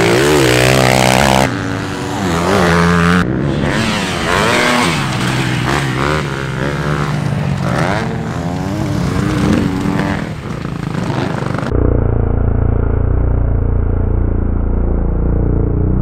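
Motocross bike engines revving hard, the pitch sweeping up and down through the gears, across several abruptly cut clips. About twelve seconds in, the engines cut off suddenly and a steady low droning tone takes over.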